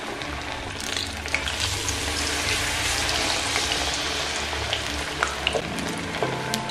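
Batter-coated chicken wings deep-frying in hot oil: a dense, steady sizzle scattered with crackles and pops.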